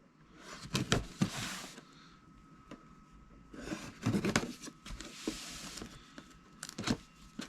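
Packaging being handled during an unboxing: two bursts of rustling with small clicks and knocks, about a second in and again about four seconds in.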